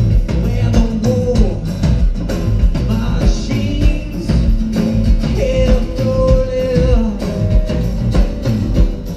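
A live rock band playing through a stage PA: a drum kit keeping a steady beat under acoustic and electric guitars, with held notes ringing over the rhythm.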